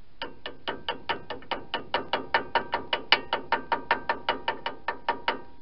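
Ratchet wrench clicking in a steady rhythm, about four to five sharp metallic clicks a second, as a brake caliper bolt is turned; the clicking stops suddenly near the end.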